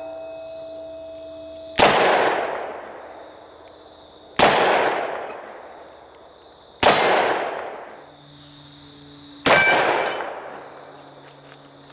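Four shots from a Ruger GP100 .357 Magnum revolver, about two and a half seconds apart, each with a long echoing tail. Steel targets ring with a metallic clang after some of the hits.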